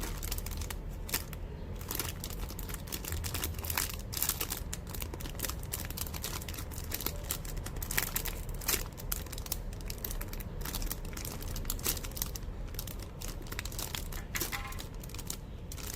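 Crinkly plastic packaging being handled: irregular crinkling and crackling with many small sharp crackles, over a steady low hum.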